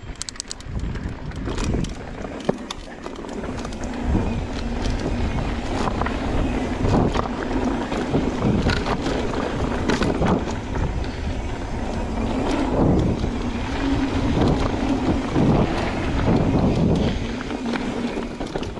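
Mountain bike rolling fast down dirt singletrack: tyre rumble on the packed dirt, with frequent short clicks and knocks from the bike over bumps. Wind noise buffets the camera microphone throughout.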